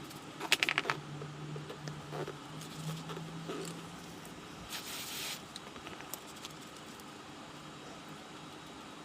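Hand work on a bicycle wheel hub during a bearing replacement: a quick run of sharp clicks about half a second in, a few lighter knocks, then a short scrape near the middle, over a steady low hum.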